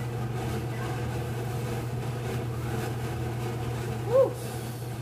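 Porridge being spooned from a stainless-steel pot onto a plate with a metal slotted spoon, over a steady low hum. About four seconds in there is one short squeak that rises and falls in pitch.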